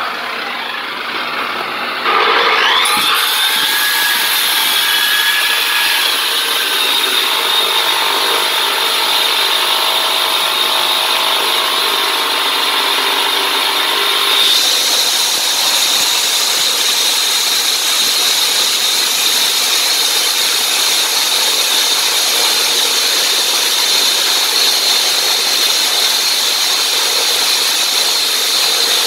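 Hilti DCH 300 electric dry diamond cutter starting up about two seconds in, its pitch rising, then running steadily as its 305 mm diamond blade cuts into a concrete block. About halfway through the sound turns brighter, with a steady high whine.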